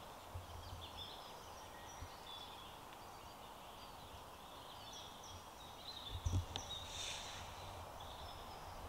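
Quiet woodland ambience: scattered small bird chirps and calls over a faint steady background, with a few low thumps about six seconds in.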